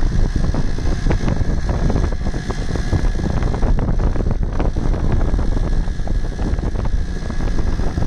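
Wind buffeting the microphone of a phone that is moving along a road: a loud, continuous low rumble that surges and dips.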